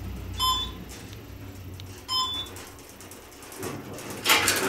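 Schindler elevator car rising with a low hum that dies away as the car slows and stops, with two short electronic beeps about a second and a half apart as it passes floors. About four seconds in the elevator doors start sliding open with a loud rush of noise.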